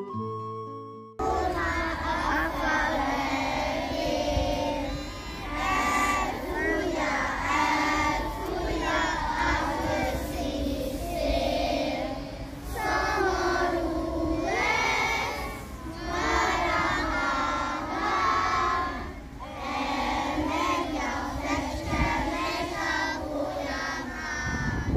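A group of children singing a song together. In the first second a soft instrumental piece plays, then it cuts straight to the singing.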